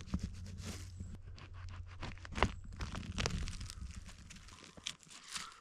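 Irregular crackling, snapping and tearing of forest-floor debris (twigs, needles and moss), the sound of hands working at the ground around a cauliflower mushroom.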